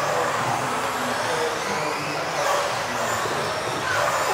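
Several radio-controlled off-road racing cars lapping an indoor track together: a steady whir of small motors and tyres with faint whines that rise and fall as they speed up and slow down, echoing in a large hall.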